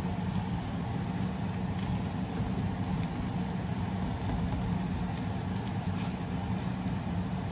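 Egg and bitter melon cooking in a pan over a gas burner turned up high: a steady sizzle and bubble over a low, even hum, with a few light scrapes of a spatula against the pan.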